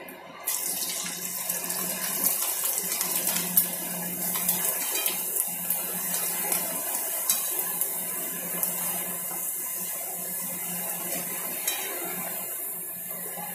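Dried rice vadam (vathal) deep-frying in hot oil: a steady sizzle with scattered crackles, starting suddenly about half a second in.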